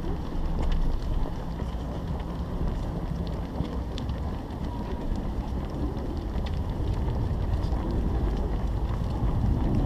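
Wind buffeting the microphone of a camera carried along by a running person, a steady rumbling rush, with faint scattered ticks from many runners' feet on the asphalt.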